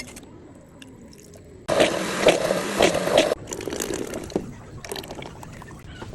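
Liquid pouring or filling for about a second and a half, starting and stopping abruptly, between soft kitchen clicks and rustles.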